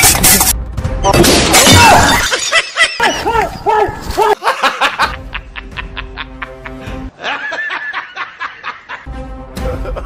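Loud crashing, shattering bursts in the first two seconds, then a run of short comic laughing sound effects, then background music with a steady beat.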